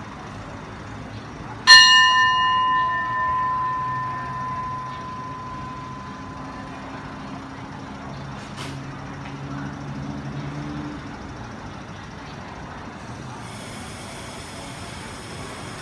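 A metal station bell struck once, ringing and slowly fading over several seconds: the signal for the train's departure from the station.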